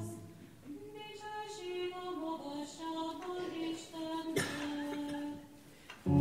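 A quiet solo melody sung by one high voice, moving note by note, in a quieter stretch between louder choral singing with organ. A single knock sounds about four seconds in, and the full singing comes back in just at the end.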